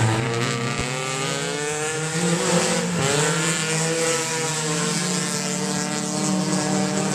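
Several race car engines running hard at once as the cars lap a dirt oval, their pitch rising and falling as the cars pass.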